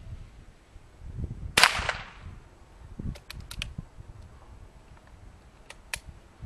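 A single .22 LR shot from a Henry lever-action rifle about one and a half seconds in, followed by a few light, sharp metallic clicks in two small groups, as of the lever being worked to eject the case and chamber the next round.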